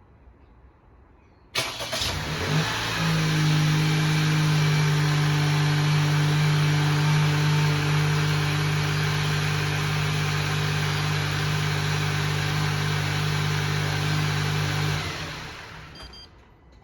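Honda N-BOX's small three-cylinder engine started remotely: a brief crank about a second and a half in, then it catches and idles steadily. It shuts off about 15 seconds in and runs down to quiet.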